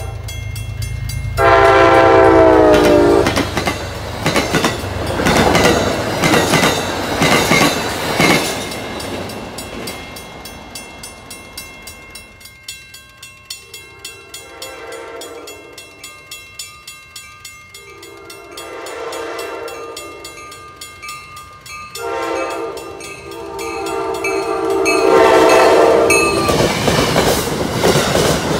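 A train horn falls in pitch as a train passes, then its wheel rumble fades. Then a grade-crossing bell rings while an approaching Amtrak passenger train sounds four horn blasts for the crossing. Near the end the rumble and clatter of its passenger cars pass close by.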